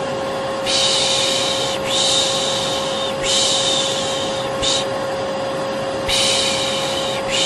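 Vacuum cleaner running with a steady hum, overlaid by a person's repeated "shh" shushing, about five long hisses, one of them short. It is the soothing white noise used to lull a baby to sleep.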